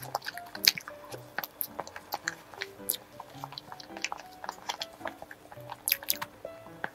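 Close-up eating sounds of soft strawberry cream cake: wet squishing and chewing with many small mouth clicks, along with the spoon scooping from the plastic cup. Light background music with short stepping notes plays underneath.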